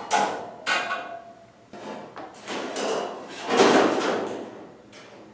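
Thin aluminium sheet panels knocking and flexing as they are handled and fitted against an aluminium kayak hull. Two sharp knocks near the start, then longer rattling swells, the loudest a little past the middle.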